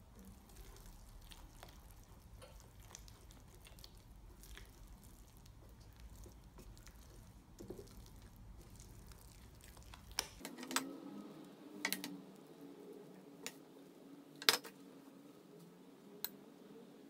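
Quiet stirring of thick corn porridge with a plastic spatula in a nonstick pan. About ten seconds in this gives way to a few sharp clicks of metal tongs against a glass bowl, the loudest near the end.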